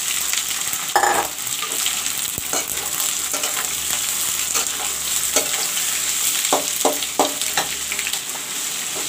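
Freshly added sliced onions sizzling in hot mustard oil in a metal kadai, stirred with a metal spatula that knocks and scrapes against the pan several times, once more loudly about a second in.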